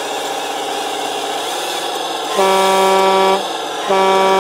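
Truck air horn sounded twice, each blast about a second long, from the radio-controlled MAN logging truck's sound system. Under it is a steady whir of the model's drive motor and gears as it crawls along.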